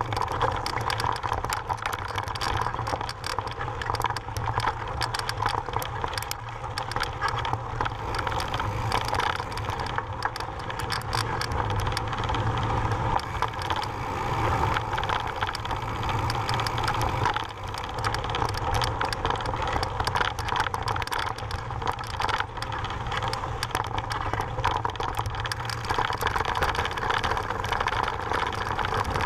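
Mountain bike ridden fast over a rocky, gravelly trail: tyres crunching over loose stones and the bike rattling with many small clicks and knocks, under a steady rush of wind and rolling noise.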